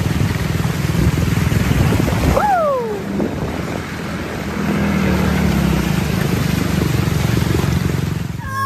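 An engine running steadily with a low rumble under a rushing noise, the kind that water and wind on the microphone make. A short falling call cuts through about two and a half seconds in.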